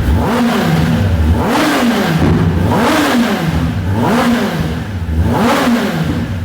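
Kawasaki ZX-10R inline-four engine with an Akrapovic exhaust being revved repeatedly in short blips, the pitch rising and falling about once a second.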